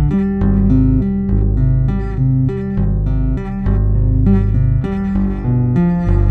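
Two-handed tapping on electric bass: a quick run of tapped notes, pull-offs and double stops over changing low bass notes. Two bass tracks are layered together, one of them a vintage-style '51 Precision Bass.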